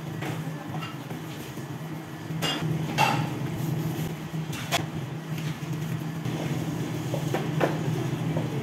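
A steady low machine hum with a few scattered knocks and clinks on a stainless steel worktable, the sharpest about three seconds in.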